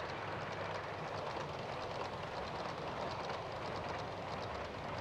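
Model trains running on a layout's track: a steady rolling rumble with rapid light clicking.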